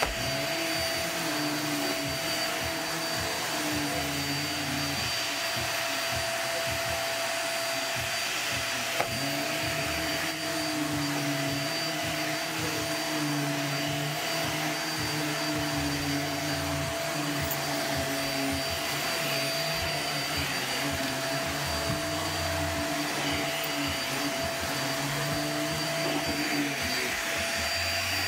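Corded upright vacuum cleaner running steadily on carpet: a constant motor whine over a rushing of air. The lower hum shifts every few seconds as the head is pushed back and forth. There is a single click about nine seconds in.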